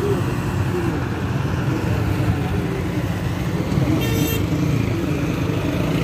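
Engines of road rollers and asphalt-laying machinery running steadily, with a short horn toot about four seconds in.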